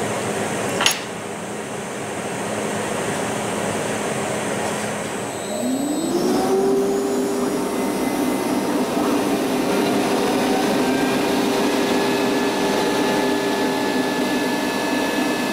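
CNC router with dust extraction running steadily, with a sharp click about a second in. About six seconds in the router spindle spins up, a rising whine that settles into a steady high hum over the extraction noise.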